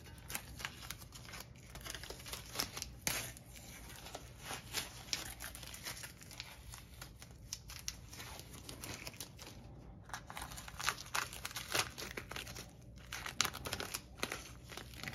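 Blue painter's tape being peeled off a painted brake caliper and crumpled into a ball by hand: irregular crinkling and tearing.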